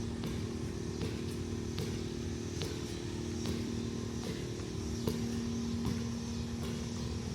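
Engine running steadily with a low hum, and faint regular ticks a little more than once a second.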